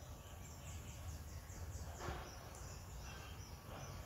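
Quiet outdoor background: a high chirp repeats steadily, with a quicker run of short falling high notes in the first two seconds, over a faint low rumble.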